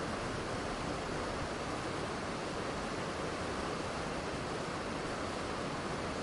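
Waterfall ambience: a steady, continuous rush of falling water with no change in level.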